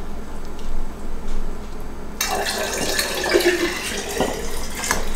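Dye liquor being poured into a glass jar, the liquid splashing and running in from about two seconds in.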